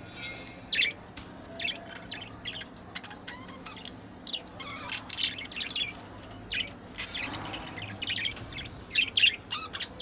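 Birds chirping and squawking in many short, sharp, irregular calls, coming thicker near the end.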